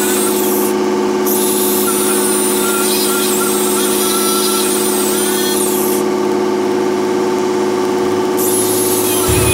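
A machine running steadily, with a constant whine that holds the same pitch throughout. Near the end a deeper hum suddenly joins in.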